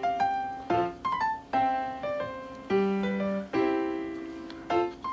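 Background piano music: a gentle tune of single notes and chords, each struck and left to fade, a new one every half second to a second.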